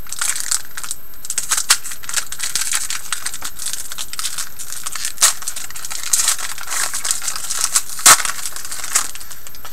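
A hockey card pack's wrapper crinkling and tearing open, then the cards rustling and clicking as they are slid out and handled, with one sharp click about eight seconds in.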